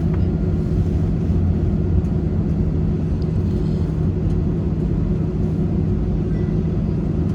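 Steady cabin drone inside an Airbus A320-216, its CFM56 engines and cabin air running at low power. A low rumble carries a couple of steady hum tones and neither rises nor falls.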